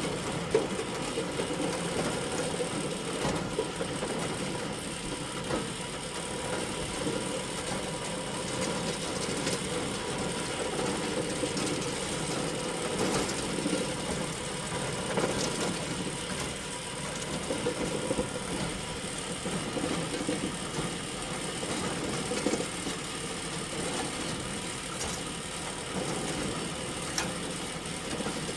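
Hay bale elevator running steadily: a continuous mechanical drone with a scatter of small rattles and clicks and no change in pace.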